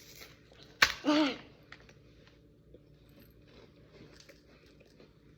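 A person eating a chocolate cracker: a sharp snap about a second in, a short vocal sound right after it, then faint crunching and small clicks of chewing.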